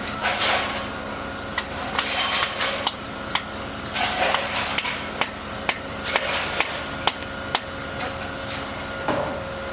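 Irregular sharp hammer blows on a building site, one or two a second, with scraping noise between strikes, over a steady machine hum.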